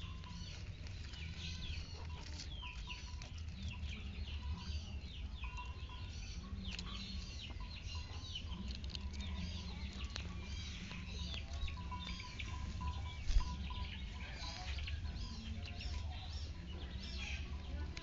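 Small birds chirping in quick, high-pitched short calls, many overlapping, with no pause. A steady low rumble runs underneath, and there is one sharp knock a little past the middle.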